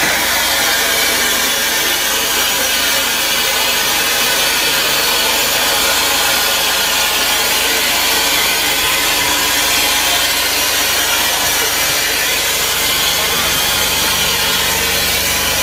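Steam locomotive heard from inside its cab: a loud, steady noise of steam and machinery with no clear beats.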